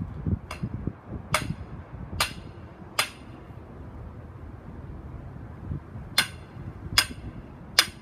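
Sledgehammer striking the steel pins of a Diamond Pier foundation, driving them into the ground: sharp metallic blows with a short ring. Four strikes come a little under a second apart, then a pause of about three seconds, then three more.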